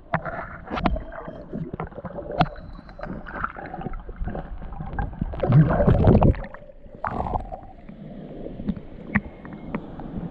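Water splashing and sloshing around a person wading through shallow water, with scattered short knocks and clicks. A louder surge of sloshing comes about six seconds in, then it settles to a softer, steady wash.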